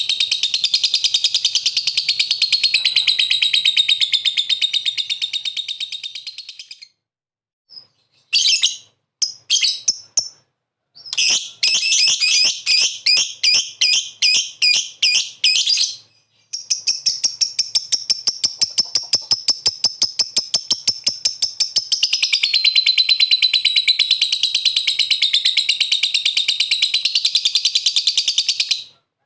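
Lovebird 'ngekek': a long, very fast chattering trill of high chirps. It breaks off after about seven seconds, comes back in short bursts and then a run of separate chirps, and goes into another long unbroken trill for the last dozen seconds.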